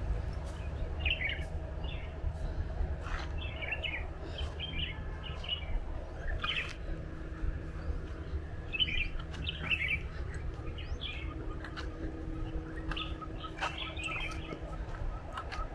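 Birds chirping in short, scattered calls, over a steady low rumble.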